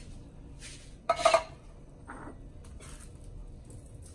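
A short metallic clink of kitchenware about a second in, ringing briefly, with a few fainter knocks before and after it.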